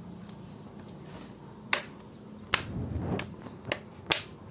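Four sharp plastic clicks, spread over about two and a half seconds, as the plastic parts of a Lenovo 330 laptop are pressed and snapped together by hand.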